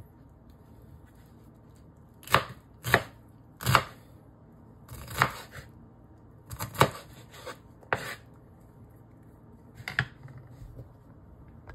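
Chef's knife chopping onion on a wooden cutting board: about eight sharp, separate knocks of the blade against the board at uneven intervals, starting a couple of seconds in.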